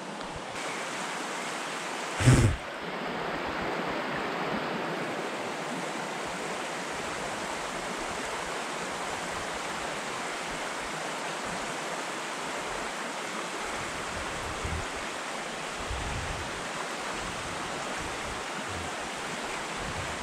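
Small creek's water running steadily over a shallow, rocky riffle: a constant rushing. A single sharp thump about two seconds in is the loudest sound, with a few faint low bumps later.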